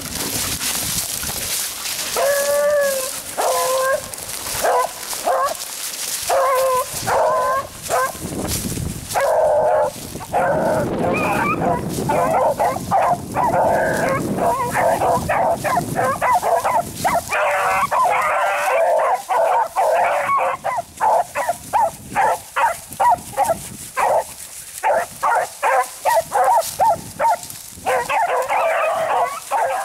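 A pack of beagles baying while running a rabbit's scent: many overlapping barks and bawls, coming faster and thicker in the second half.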